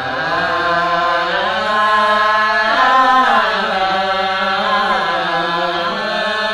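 A man's voice chanting a Sasak hikayat verse in the traditional tembang style. He holds long, ornamented notes that slide up and down in pitch, through a microphone and PA.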